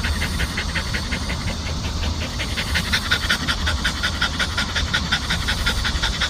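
Dog panting rapidly and steadily, about six breaths a second, getting a little louder about three seconds in: heavy panting from the summer heat.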